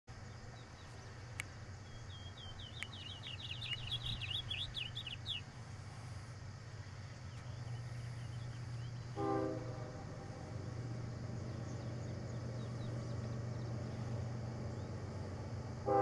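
A distant train horn sounds one short blast about nine seconds in, over a steady low rumble. A songbird sings a quick run of high chirps a few seconds before it.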